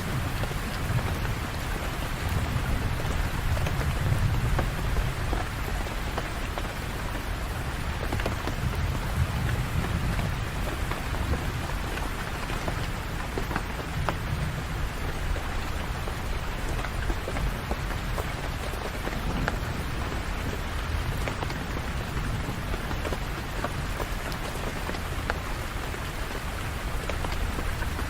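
Steady rain falling and pattering on surfaces, with individual drops ticking through the hiss. A low rumble swells and fades several times underneath.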